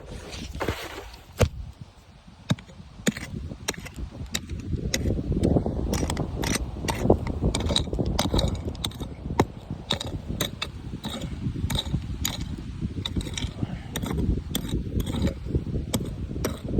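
Wind buffeting the microphone in a low rumble that builds up a few seconds in, with many sharp clicks and knocks scattered throughout.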